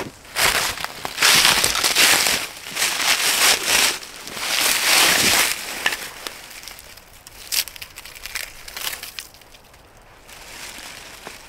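Loud, irregular crunching and crackling of dry forest debris being broken or trampled, in several bursts over the first five seconds, then a few lighter crackles and a sharp snap.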